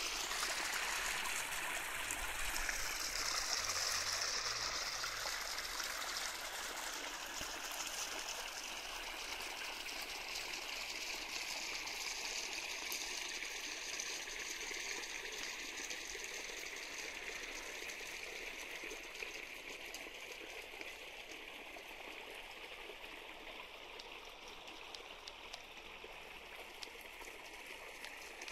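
Water running steadily into a garden pond, a continuous trickling flow that slowly grows fainter.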